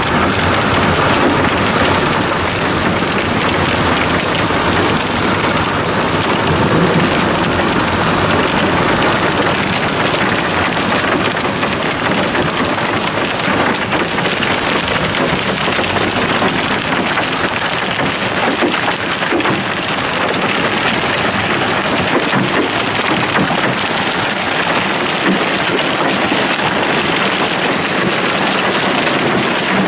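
Rain and small hail pelting the car, a dense steady hiss. For the first dozen seconds a lower rumble of tyres on the hail-covered road sits under it, then fades as the car slows.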